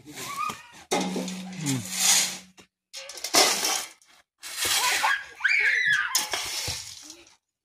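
A shovel scraping into loose sand and soil and tipping it into a basin, in several separate noisy strokes, with children's voices and a shriek among them.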